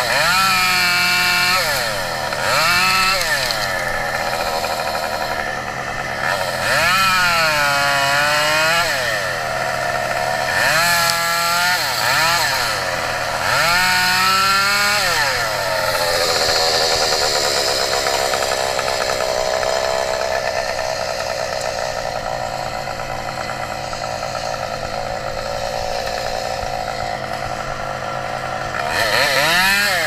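Gas chainsaw engine revved up and down again and again, about five times in the first half, then running at a steadier, lower speed for most of the second half before revving up again at the very end.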